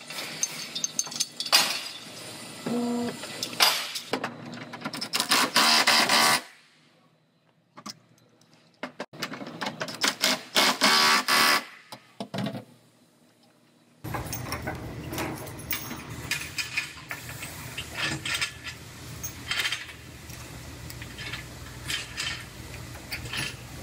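Collision-repair pulling work on a car's crushed rear body panel: a run of metal clanks, knocks and rattles from the pulling chains, clamps and tools, with a brief pitched tone about three seconds in. The sound drops out twice for a second or so.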